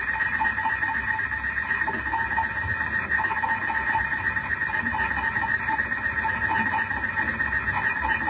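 Thermomix cooking machine running during its cook cycle, its motor turning the blade to stir the stew. It gives a steady whirring whine that does not change.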